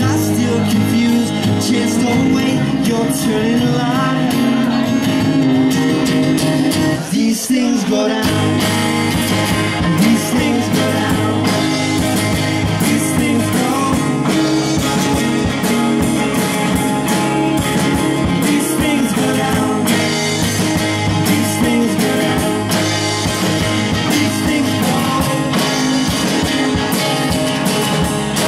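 Live indie folk-rock band playing: acoustic guitar, fiddle and electric bass over a steady drum beat, with a short break about seven seconds in.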